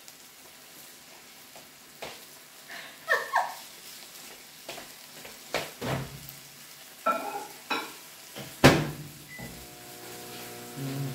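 Food sizzling on a Korean barbecue grill, with a string of sharp clinks and knocks of utensils against the pan and dishes, the loudest about three quarters of the way through.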